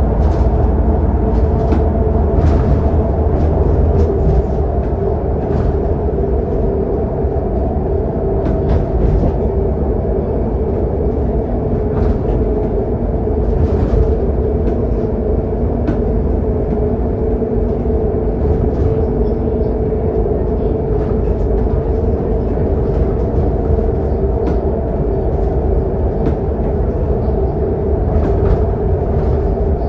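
Inside the lower deck of a Scania K280UD double-decker bus at highway speed: its nine-litre five-cylinder diesel engine running steadily under a constant low droning hum, mixed with road and tyre rumble and a few light clicks.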